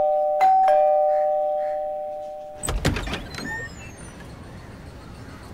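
Two-tone doorbell chime, a higher note then a lower one ("ding-dong"), struck again about half a second in and ringing out over two seconds. Near three seconds a short cluster of clicks and knocks follows as the front door is unlatched and opened.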